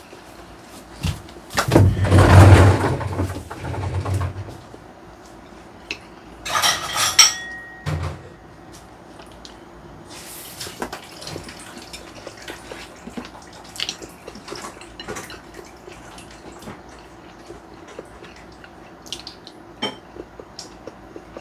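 Tableware clatter: a burst of movement and dishes knocking about two to four seconds in, a brighter ringing clink a few seconds later, then light clicks of chopsticks against a plastic takeout food tray.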